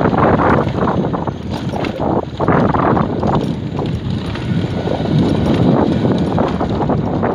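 Wind rushing over the microphone of a motorbike riding a rough, stony dirt road, with uneven knocks and rattles from the bumps.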